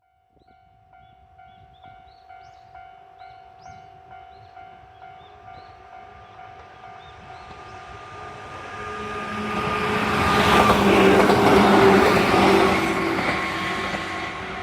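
Level crossing warning bell ringing in quick, regular dings. A JR 103 series 3500 electric train then approaches and passes over the crossing, its noise building to a loud peak about two-thirds of the way through and easing off near the end.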